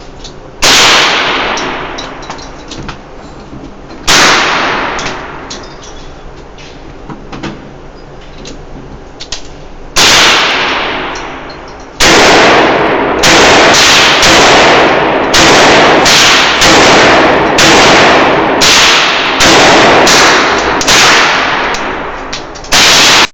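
Handgun shots with long ringing echo tails, loud enough to overload the microphone. Single shots several seconds apart come first, then from about halfway a rapid string of shots roughly every half second to second.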